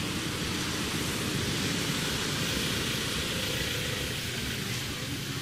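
Steady rushing outdoor noise, an even hiss with no distinct calls or knocks in it.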